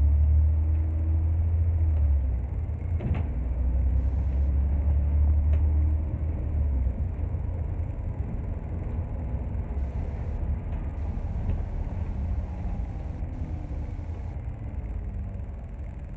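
Bus engine and road noise heard from inside the bus: a low rumble that is strongest for about the first six seconds, then eases off, with a light click about three seconds in.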